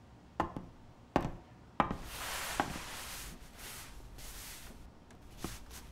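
High-heeled shoes clicking on a wooden floor, four sharp steps about two-thirds of a second apart, then a soft rustle of clothing as someone sits down on a wooden chair; one more tap near the end.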